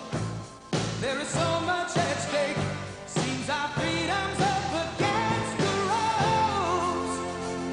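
Background music: a pop song with a singing voice over a steady beat.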